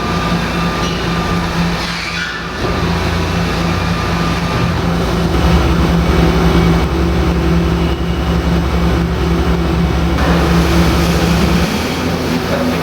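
PAMA Speedmat 4-160 horizontal machining center running, a steady mechanical hum with a low rumble that grows stronger about five seconds in and eases off near the end.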